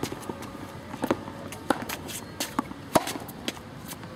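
Tennis ball being struck by a racket and bouncing on a hard court in a rally: sharp pops every second or so, the loudest about three seconds in.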